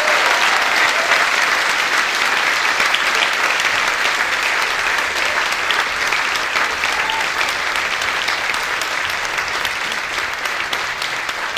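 Theatre audience applauding: dense, steady clapping that slowly dies down.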